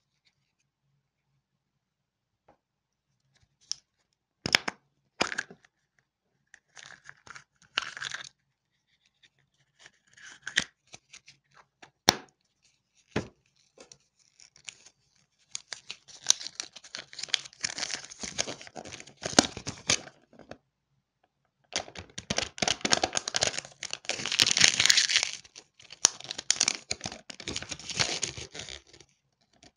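Hands working a Kinder Surprise toy capsule and its wrappings: a few sharp clicks and short rustles in the first half, then long stretches of crinkling and tearing of thin paper and foil, loudest a few seconds before the end as the folded paper leaflet is opened.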